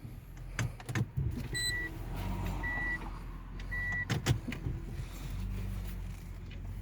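Inside a parked car: short, evenly pitched electronic beeps of the car's warning chime, sounding three times about a second apart, among sharp clicks and knocks of things being handled in the cabin, over a low steady hum.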